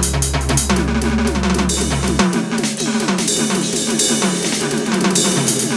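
Instrumental art-punk music: a drum kit with bass drum, snare and cymbals drives a steady beat over repeated downward-sliding notes. A low droning bass note cuts off about two seconds in.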